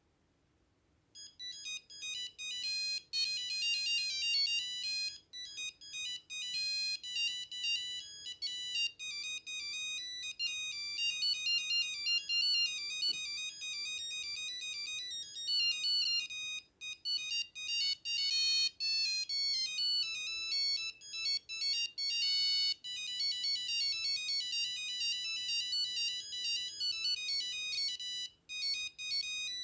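Nokia 5190 ringing for an incoming call: a monophonic ringtone melody of quick, high beeping notes that starts about a second in and repeats phrase after phrase.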